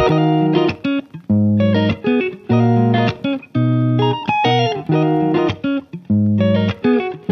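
Background music: a plucked guitar playing a tune in short phrases of notes, with brief gaps between them.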